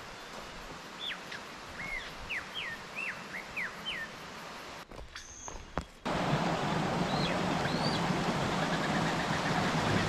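A bird calls a quick series of about eight sharp, falling whistled notes. After a short break, a louder steady rushing noise comes in about six seconds in, with a few more bird notes over it.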